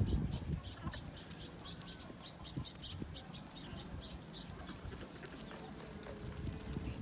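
Small birds chirping rapidly and repeatedly, several high chirps a second, over a low rumble that is strongest at the start.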